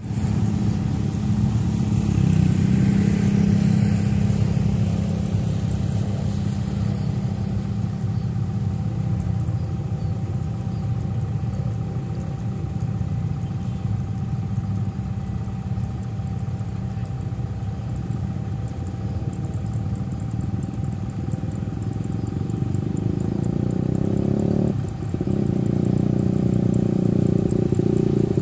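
Steady low rumble of road traffic, with motorcycle engines running close by; it swells again near the end as motorcycles come close.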